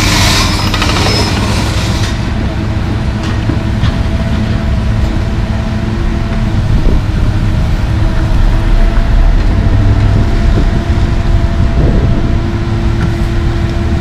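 Komatsu PC220 excavator's diesel engine running under load, with a steady hydraulic whine that comes and goes as the boom and bucket move, and a few short knocks from the bucket working broken sidewalk concrete. A hiss is heard during the first two seconds and then stops.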